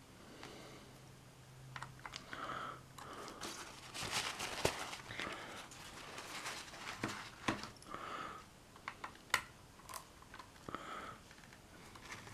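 Paper towel crinkling in the hands, with irregular small clicks and taps of a screwdriver working screws out of a plastic cassette-player casing.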